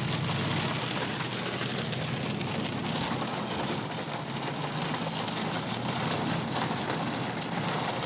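Steady rain on a moving car, heard from inside the cabin with a constant low hum of road and engine noise beneath it.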